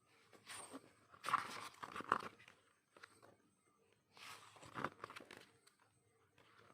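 Packaging being handled and unwrapped: two bursts of crinkling and tearing, one about half a second in lasting nearly two seconds, a shorter one about four seconds in.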